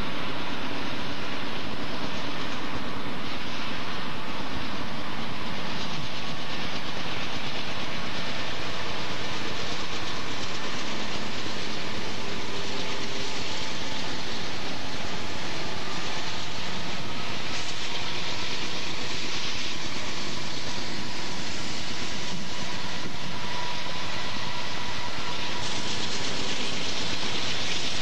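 Several GE wide-cab diesel-electric freight locomotives passing close by, their engines running loudly and steadily, with faint steady tones in the noise.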